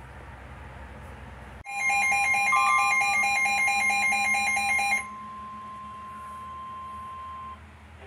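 Weather alert radio sounding an alarm: loud, rapid beeping for about three seconds over a steady tone just above 1 kHz. The steady tone carries on alone, quieter, for a couple more seconds and then cuts off. This is the warning-alarm tone that announces a new weather warning.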